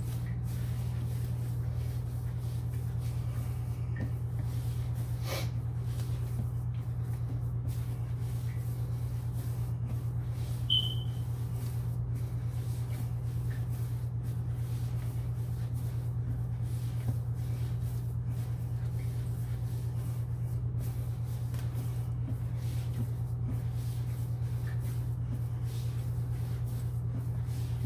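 A steady low hum runs throughout and cuts off suddenly at the very end, under faint sounds of dough being pressed and pushed by hand on a granite countertop. A brief high chirp comes about eleven seconds in.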